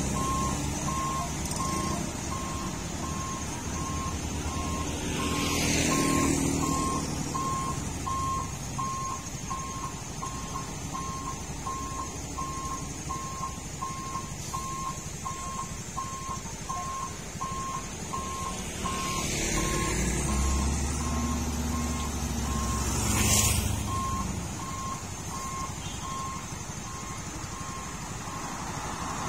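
A truck's reversing alarm beeps at an even pace over the low rumble of a diesel engine. Vehicles pass close by a few seconds in and twice in the last third.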